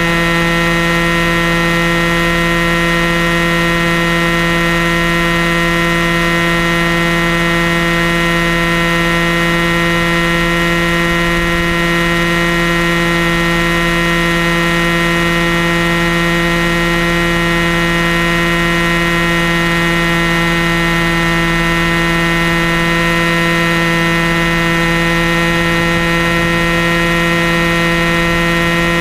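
Airstar Mongoose RC helicopter in flight, its powerplant and rotor running at a steady pitch, heard close up from a camera strapped to its nose.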